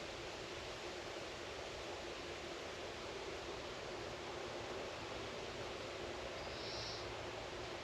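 Steady, even outdoor background noise, a soft hiss with no distinct source, and a brief faint high sound about six and a half seconds in.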